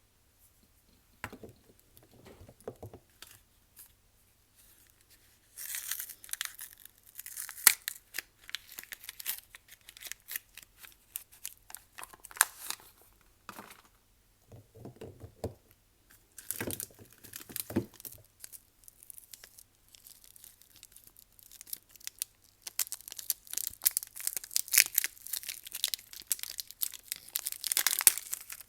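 Soap packaging being torn open and crinkled by hand, in irregular bouts of crackly tearing and rustling that grow denser near the end.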